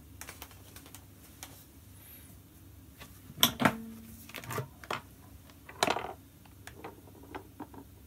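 Small clicks and knocks of objects being handled on a tabletop, with two louder knocks about 3.5 and 6 seconds in, the first leaving a short ringing tone.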